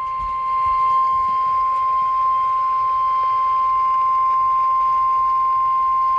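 NOAA Weather Radio emergency alert attention tone: a single long, steady high-pitched tone over a light radio hiss.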